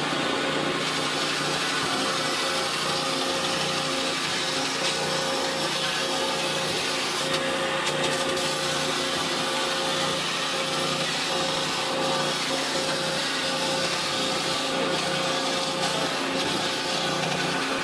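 CNC water jet cutting machine running: a steady hissing noise with a constant mid-pitched hum through it.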